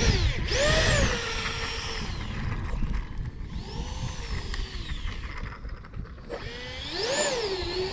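Twin 50 mm electric ducted fans of a foam RC A-10 jet whining, their pitch rising and falling in arcs about three times as the throttle changes, over wind rumble on the microphone.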